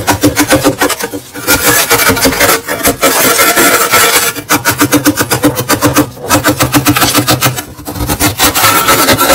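Metal scraper scraping thick frost off a freezer wall in rapid, rasping strokes, many a second, with a few short breaks.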